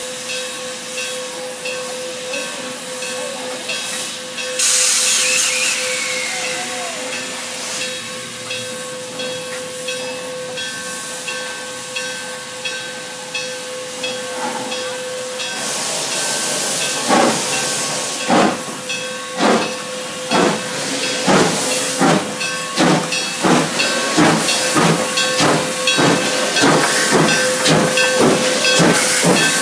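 Durango & Silverton K-36 steam locomotive No. 480 hissing steam while standing, with a loud blast of escaping steam about five seconds in. A little past halfway it starts off, its exhaust chuffs beginning slowly and quickening as the train pulls out.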